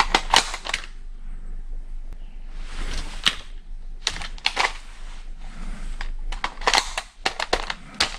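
Clicks and clacks of a Tokyo Marui CAR-15 airsoft electric rifle being handled in a reload: the magazine is swapped at the magazine well and the charging handle is worked. The clicks come in several quick groups, with a short rustle about three seconds in.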